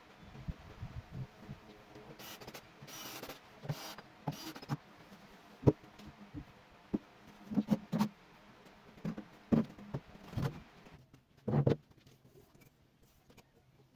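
Irregular knocks, taps and clicks with a few short scraping sounds, as of wood pieces and hand tools being handled on a workbench.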